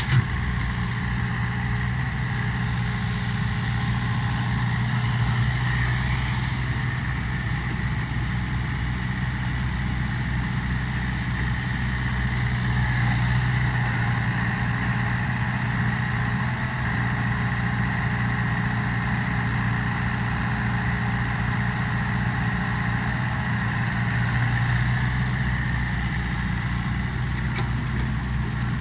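A Komatsu crawler excavator's diesel engine running steadily as it travels and swings to load soil into a dump truck, along with an Isuzu dump truck's engine idling. The low engine note swells slightly a few times.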